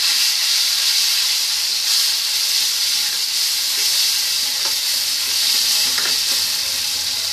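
Wet tomato and onion-garlic-chilli paste frying in hot oil in a steel kadhai: a steady sizzle with steam, while a metal spoon stirs it with a few light scrapes against the pan.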